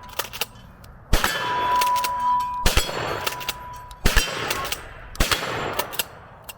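An old J.C. Higgins shotgun firing double-aught buckshot four times, a second or so apart, each blast followed by a ringing clang from the steel target it hits.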